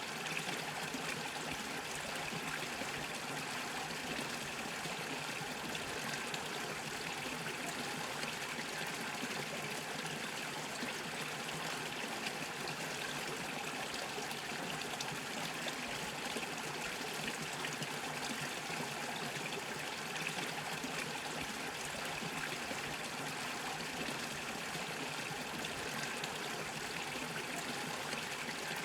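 Small brook bubbling and trickling over stones, a steady even rush of running water.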